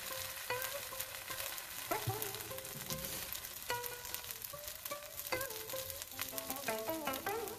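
A Korean seafood pancake of batter, squid and green onion sizzling steadily in oil in a nonstick frying pan as its second side cooks. A few short pitched notes sound over the sizzle.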